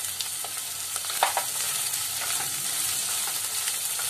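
Sweet corn, carrot and beans frying in oil in a non-stick kadai with a steady sizzle, stirred with a plastic spatula. The spatula scrapes and knocks against the pan a few times, most sharply about a second in.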